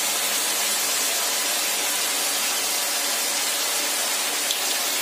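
Chicken pieces and sliced onions sizzling steadily in hot oil in a steel kadai.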